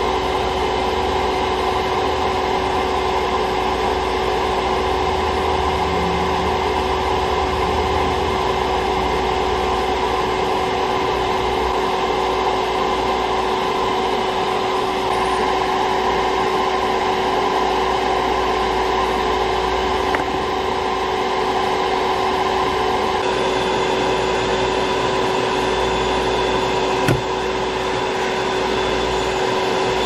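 Soldering fume extractor fan running with a steady hum and a constant tone. There is a single small click near the end.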